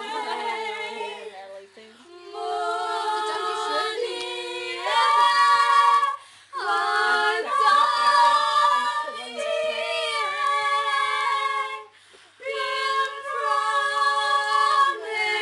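Four girls singing together without accompaniment: long held notes in phrases, with short breaks about two, six and twelve seconds in.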